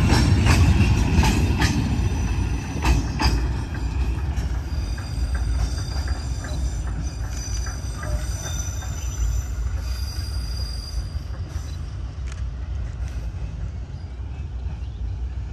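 Train in the D13E-hauled consist rolling past, its wheels clicking over rail joints. A thin, high wheel squeal sounds through the middle. The rumble fades steadily as the train draws away.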